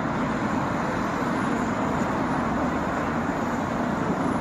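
Steady traffic noise from a busy urban motorway: a continuous stream of car tyre and engine noise with no single vehicle standing out.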